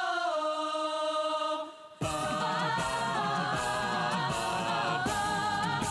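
A recorded song playing over an auditorium's sound system: it opens on a sustained sung note, then about two seconds in the full band comes in with a steady beat and bass under the singing.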